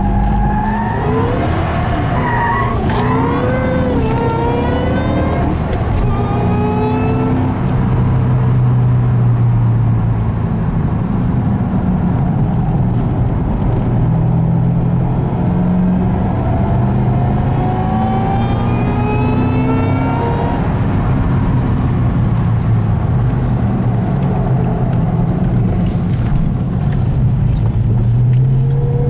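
Ford Mustang Shelby GT500's V8 engine heard from inside the cabin while driving hard on a race track. Early on there is a wavering squeal of tyres sliding, then the engine note rises under acceleration several times.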